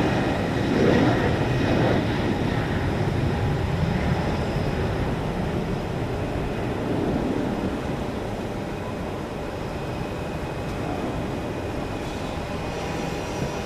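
Jet noise from a JetBlue Embraer E190's two GE CF34-10E turbofans at takeoff thrust as it lifts off and climbs away: a steady rumble, loudest in the first couple of seconds and slowly fading as the jet gains height.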